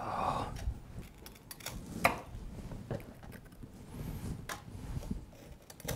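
A knife knocking on a wooden cutting board as ladyfingers are cut to size: a few separate knocks, the sharpest about two seconds in, after a brief rustle at the start.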